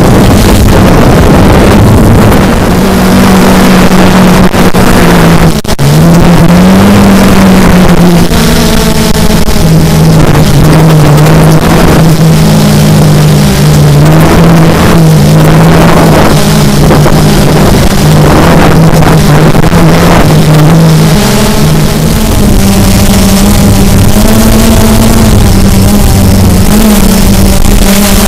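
Multirotor drone's motors and propellers buzzing loudly as heard from the onboard camera, with a steady hum whose pitch steps down a little after about six seconds and rises again near the end as the drone manoeuvres. Wind rush mixes with it.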